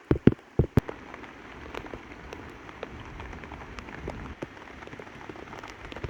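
Rain falling steadily, with scattered louder drops ticking through it. In the first second there are three or four heavy thuds, about half a second apart.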